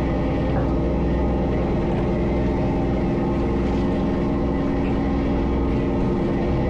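Steady drone of a crab fishing boat's engine and pot-hauling machinery running, an even, unbroken hum.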